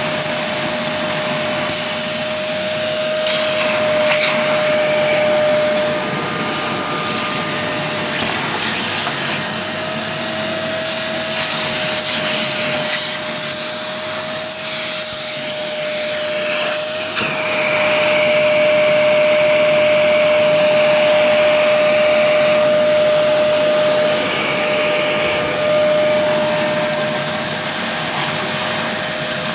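Parkside PNTS 1500 C4 wet/dry workshop vacuum running, a steady whine over rushing air as the hose sucks up workshop dirt. From about 17 to 24 seconds in it gets louder, with a higher hiss added.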